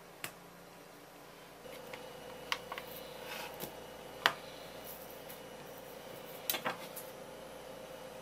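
Handling sounds on a wooden cutting board: a few short knocks and taps as a raw white-fish fillet is set down and positioned, the sharpest about four seconds in and two close together near the end. A faint steady hum comes in after about a second and a half.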